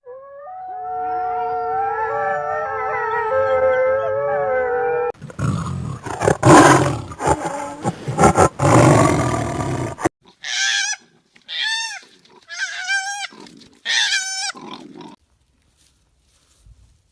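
A run of animal calls from different animals. First comes a chorus of long, overlapping held cries that glide slowly in pitch. About five seconds in this gives way to a loud, rough, noisy call, then to five short arching calls, then quiet.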